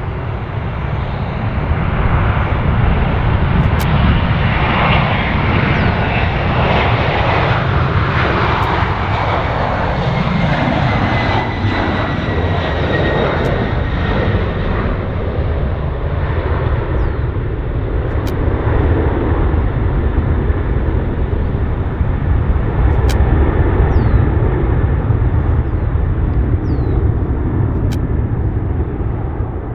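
A Boeing 767-300ER's twin turbofan engines at takeoff power give a loud, steady roar as the jet rolls down the runway and climbs away. About a third of the way in, an engine whine falls in pitch as the aircraft passes.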